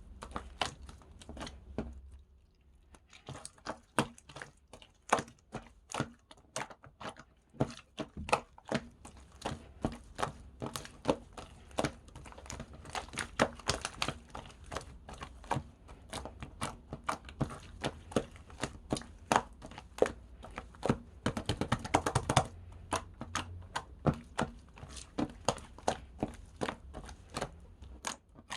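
Slime being squished and poked by hand, giving a continuous run of sticky clicks and pops, several a second, with a brief lull about two seconds in.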